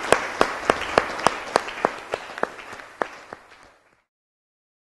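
Audience applauding, with a few sharp claps standing out from the rest; the applause fades away and stops just before four seconds in.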